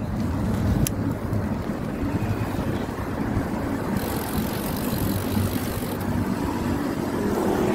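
Wind noise on the microphone of a phone carried on a moving road bike, with tyre and road noise beneath. There is one sharp click about a second in.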